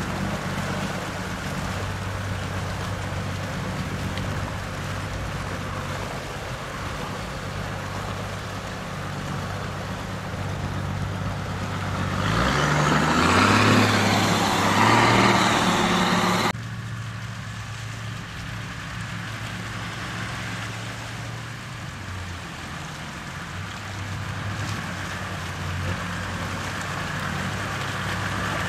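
Toyota Land Cruiser HDJ80's straight-six turbodiesel engine running steadily. About twelve seconds in it revs up under a loud rushing noise, which cuts off suddenly about four seconds later, and the engine then runs steadily again.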